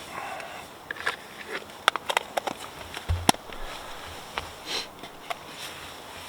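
Spoon clicking and scraping against a bowl while blueberries are stirred into instant oatmeal, with a dull thump about three seconds in and a sniff.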